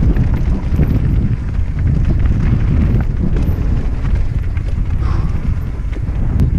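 Mountain bike rattling and bumping over a rough dirt trail, with a dense run of small knocks over a steady low rumble and wind buffeting the microphone.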